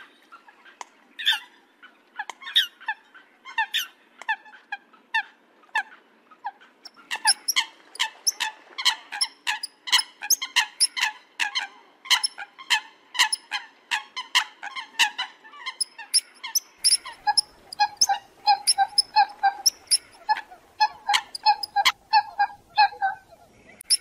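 Coots calling: a long run of short, sharp calls, sparse at first, then coming several a second and overlapping as if from more than one bird. Near the end the calls turn lower and more even in pitch.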